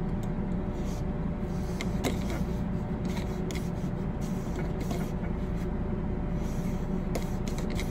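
A .45-calibre bore brush on a cleaning rod, worked back and forth through the barrel of an 1875 Uberti Outlaw revolver, giving faint, irregular scrapes and clicks as it loosens fouling. Under it is a steady low hum.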